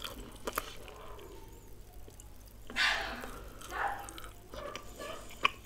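Soft wet, squelchy handling sounds and small clicks as naan is torn and dipped into creamy methi malai chicken gravy by hand, with two brief louder noises about three and four seconds in.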